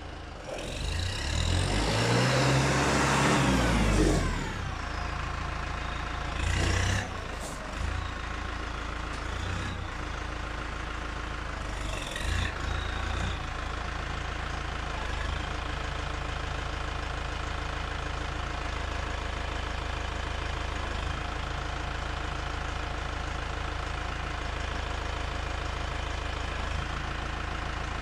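Massey Ferguson 2435 ST tractor's diesel engine revving as the tractor drives up, its pitch rising and then falling, with a couple of short louder bursts, then settling into a steady idle.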